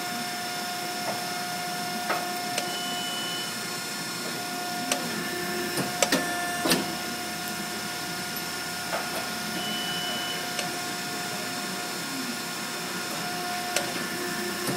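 Steady electrical hum of a Haeger 824 WindowTouch rivet insertion machine switched on and idling, with sharp metallic clicks and clinks as long steel rivets are pushed into a steel block and handled. Two short high beeps sound about 3 seconds and 10 seconds in.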